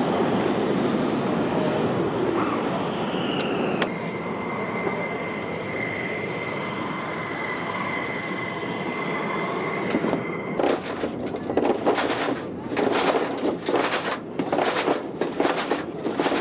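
Steady jet-engine noise with a high, even whine from aircraft running on the flight line. About ten seconds in, a run of sharp metallic clanks and rattles sets in as ground crew handle equipment under the fighter.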